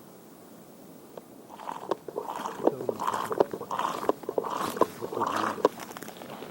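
Close rustling and crinkling handling noise with irregular clicks, starting about a second and a half in and going on in uneven bursts for about four seconds.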